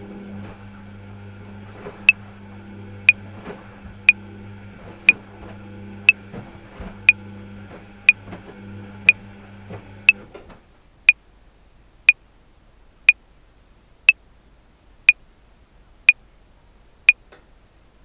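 Top-loading washing machine running, its motor humming with some tumbling clatter, then stopping about ten seconds in. Over it a metronome clicks once a second at 60 bpm, sixteen clicks starting about two seconds in.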